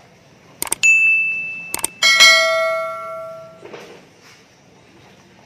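Mouse-click and notification-bell sound effects of a subscribe reminder: a few sharp clicks, then a single high ping held for about a second. Then more clicks and a fuller bell chime that fades out over about a second and a half.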